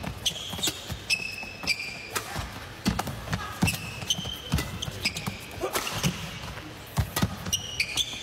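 Badminton rally: racket strings smacking the shuttlecock in sharp hits a second or so apart, with players' shoes squeaking briefly and repeatedly on the court mat, echoing in a large hall.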